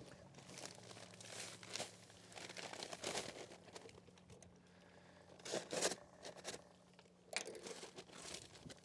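Crinkling and rustling of a sugar bag being handled and opened, in irregular bursts, loudest about five and a half seconds in. A faint, low, steady hum runs underneath.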